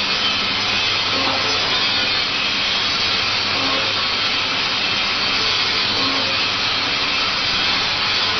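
Automatic sachet filling and four-side sealing machine running: a steady mechanical whir with a faint beat recurring at regular intervals as it cycles.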